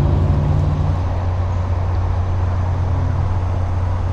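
Steady low engine hum from an idling motor, with a faint even rumble behind it.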